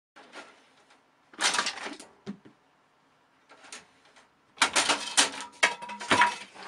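A cat's claws scrabbling and knocking against a computer tower case: a short burst of clattering about a second and a half in, then a longer stretch of rattling scrabbles from about halfway.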